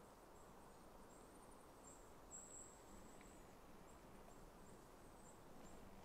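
Near silence: faint forest ambience with a scatter of very high, thin chirps, one of them longer a little after two seconds in.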